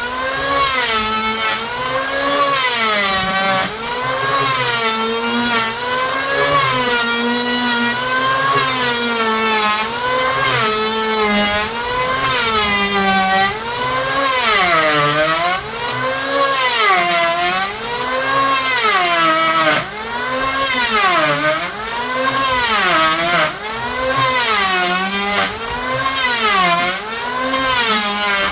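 Electric power planer running continuously while cutting down the top of an anvil stand, its motor pitch dropping and recovering with each pass, about one pass every couple of seconds.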